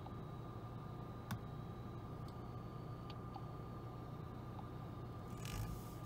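Light clicks and ticks from fingers tapping a dashboard-mounted touchscreen, one sharper click about a second in, over a faint steady hum. Near the end comes a brief rustle as the hand takes hold of the corded push-to-talk speaker-microphone.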